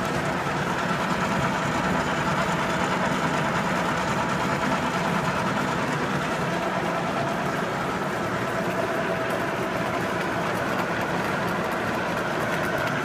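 50-inch Bullard Spiral Drive vertical turret lathe running under power with everything going at once: a steady mechanical drone of motor and gearing, with a faint steady whine held through it.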